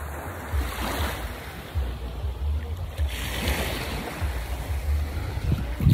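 Sea water washing and lapping around a person standing in shallow surf, with wind buffeting the phone's microphone in gusty low rumbles.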